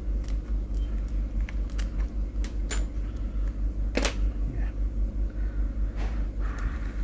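Scattered small clicks and ticks from plastic pry tools working under a smashed iPhone XS screen, the sharpest about four seconds in, over a steady low hum.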